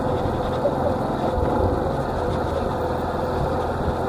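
Small motorcycle's engine running steadily at low speed as it rides along a street.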